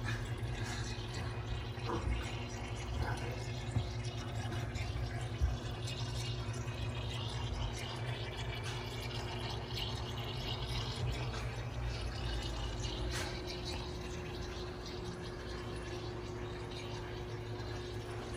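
Water trickling and dripping over a steady low hum, with a few soft clicks.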